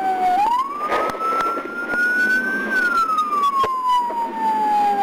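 Police car siren wailing, a single tone rising and then falling slowly in pitch, over steady road noise, with a few sharp clicks.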